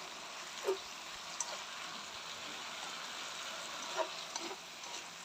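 Pumpkin shoots and leaves sizzling in hot oil in a stainless steel wok as they are stir-fried, the freshly added leaves hissing steadily. A few light clicks of wooden chopsticks come as the greens are tossed.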